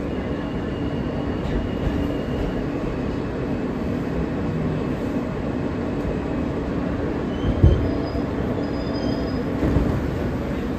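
New York City subway car running, its wheels rumbling steadily on the track, with faint high wheel or brake squeals and a single thump about three quarters through. The train is braking into a station.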